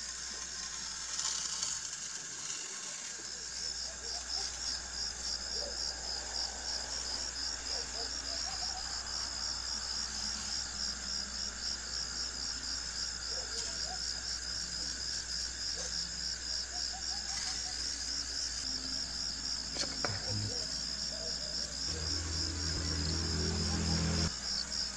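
Insect chirping in a fast, even, high-pitched pulse that keeps going without a break, over a steady low hum, with a few faint clicks about twenty seconds in.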